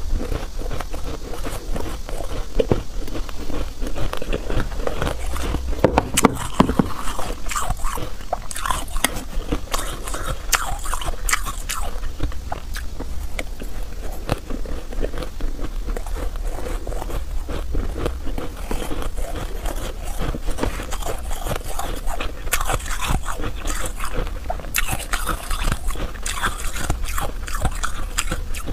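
Close-miked mouth sounds of soft shaved 'cotton' ice being bitten and chewed: a dense, irregular run of soft crunches.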